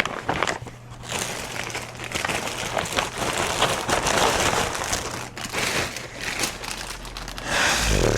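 Bags of wool stash rustling and crinkling as they are handled and opened, a dense crackle throughout with a louder swell near the end.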